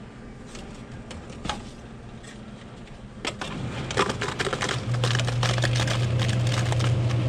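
Soda fountain ice dispenser running, starting about three seconds in: a steady motor hum with ice cubes clattering rapidly into a large cup.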